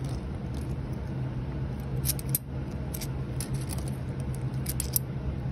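Kennedy half-dollar coins clicking and clinking faintly as they are handled and turned between gloved fingers, in small clusters about two seconds in and again a little later, over a steady low hum.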